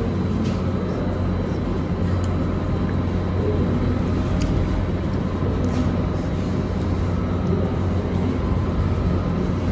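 Steady low hum of a restaurant's background room noise, with a few faint clicks.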